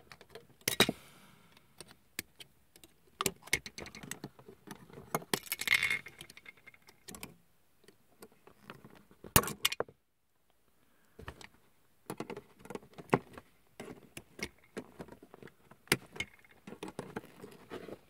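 Plastic model parts being clipped off a plastic runner with side cutters: sharp, irregular clicks and snaps, with plastic rattling and handling noise in between. A second of dead silence about ten seconds in.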